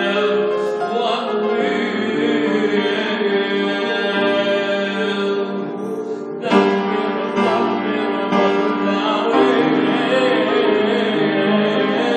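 Man singing a hymn in long held notes into a microphone, with piano accompaniment; a new phrase begins about halfway through.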